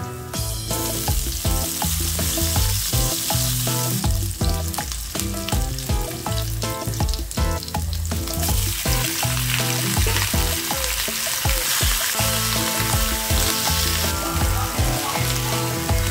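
Garlic and onion sizzling in oil in a nonstick wok; about eight seconds in, raw chicken pieces are tipped in and stirred with a spatula, and the sizzle gets stronger. Background music plays underneath.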